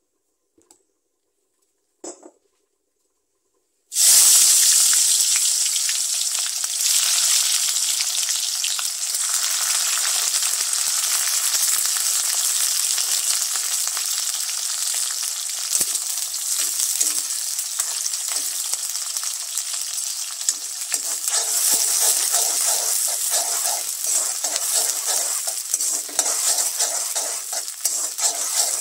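Sliced onions and green chillies dropped into hot oil in a wok, starting a loud sizzle suddenly about four seconds in that carries on with fine crackling as they fry. A metal spoon stirs them in the wok near the end.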